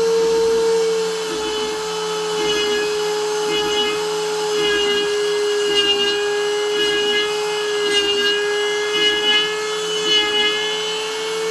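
Homemade CNC milling machine cutting a plate: the spindle runs with a steady high whine that drops slightly in pitch as the cutter takes load, while the cutting noise swells and fades about once a second.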